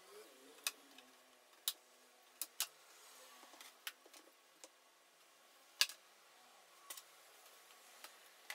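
Scattered light clicks and taps of a MacBook Pro aluminium display lid and its LCD panel being handled and lifted apart, irregularly spaced, with one sharper click a little before six seconds in.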